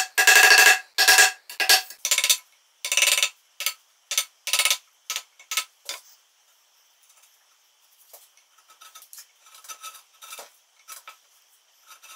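A marking knife drawn again and again along a line across a wooden workpiece, scoring the layout line deeper: about a dozen scratchy, ringing strokes, long at first, then shorter and quieter, dying out about six seconds in. Then only faint light taps and scrapes as a chisel is set into the knife line.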